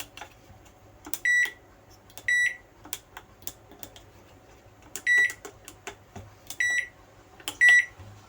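Microwave oven control panel's buzzer giving five short, high beeps, one for each keypad press, with light clicks of the key presses between them. The repaired control board is responding to its front-panel keys.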